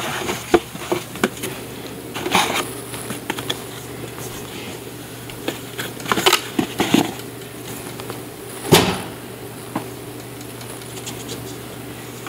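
Cardboard box rustling and scraping in short bursts with scattered light clicks as a cat moves in it and a hand handles the box, over a steady low hum.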